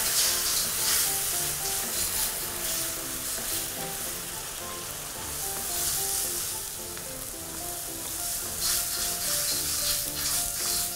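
Coconut cream sizzling in a hot wok over fried green curry paste, stirred with a wooden spatula. Soft background music runs underneath.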